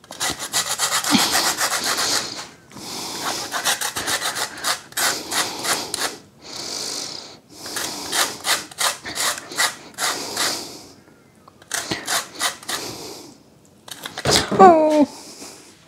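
An orange rubbed quickly back and forth on a handheld stainless-steel grater, grating off the zest: runs of rasping strokes in bursts with short pauses between them. Near the end a short voice-like sound rises and falls.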